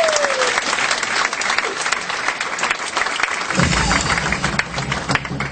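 Theatre audience applauding a performer's entrance, a long whistle falling away at the start. Music with a low bass line comes in about two-thirds of the way through.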